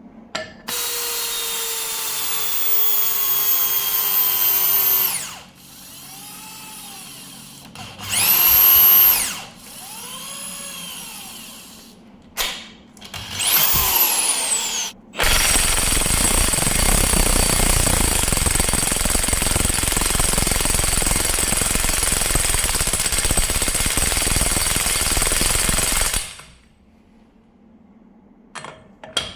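Kobalt KIW 5024B-03 24-volt brushless cordless impact wrench, its motor whining in several short runs as the speed rises and falls. About halfway in it hammers steadily and loudly for about eleven seconds, working against a tight nut.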